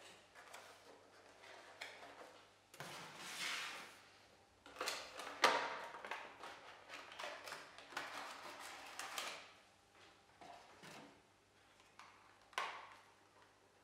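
Cardboard box and plastic insert of a Funko Pop vinyl figure being handled and opened: rustling, scraping and small clicks as the figure is worked out of its packaging, in several bursts with the longest in the middle.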